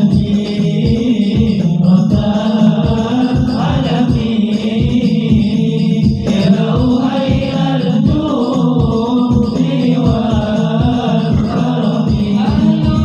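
Sholawat: devotional Arabic chanting in praise of the Prophet Muhammad, sung over a steady low beat.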